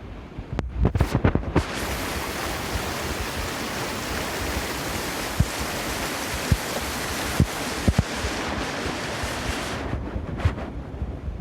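Burn in spate after heavy rain: a steady full rush of water that starts abruptly about a second and a half in and stops just as abruptly near the end. Wind buffets the microphone with low thumps before and after it.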